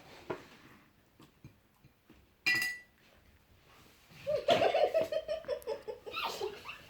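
A child laughing in a quick run of pulsing bursts that starts about four seconds in and lasts about two seconds. A short, sharp high-pitched sound comes briefly before it.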